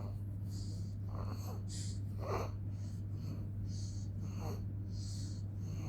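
A person breathing in short, soft sniffs and breaths, one about every second, over a steady low hum.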